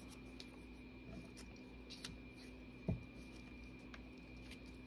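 Faint handling of paper scraps on a desk, light rustles and ticks, with a single soft thump about three seconds in. A faint steady hum sits underneath.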